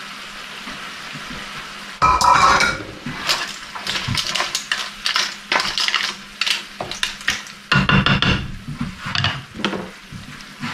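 Pipi clam shells clattering and knocking against a frying pan as they are stirred through a sizzling tomato sauce with a wooden spoon. A steady sizzle comes first; the clatter starts suddenly about two seconds in.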